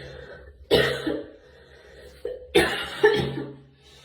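A girl coughing: one cough about a second in, then two more close together near the end.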